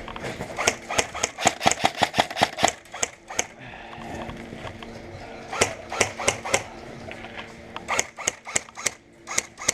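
Airsoft guns firing in quick strings of sharp snapping shots, about four a second. There is a long string in the first few seconds, a short one around the middle, and another near the end, over a faint steady hum.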